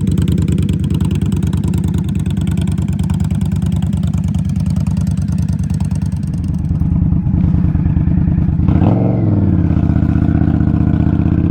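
Indian Scout Rogue's V-twin engine idling through GP Shorty exhausts with a steady, even pulse, then a quick throttle blip about nine seconds in that rises and falls back to idle.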